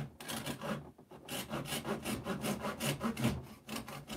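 A handheld knife sawing in quick back-and-forth strokes, about five a second, through the edge of a model railroad layout's scenery, with a brief pause about a second in.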